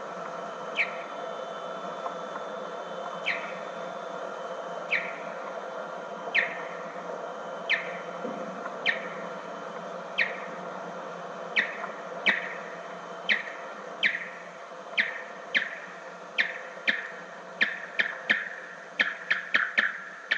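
Big brown bat's echolocation calls played back at one-sixteenth speed, heard as short downward-sweeping chirps. They come about one every second or so at first, then faster and faster toward the end, the pulse rate rising as the bat closes on the obstacles. Under them runs a steady hiss and hum from the tape.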